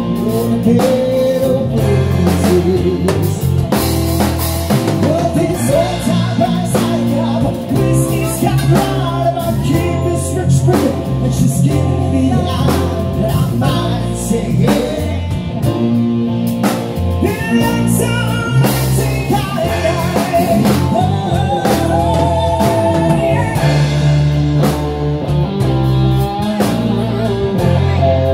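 Live band playing a rock ballad: electric guitar, drum kit and keyboard backing a male singer through a PA.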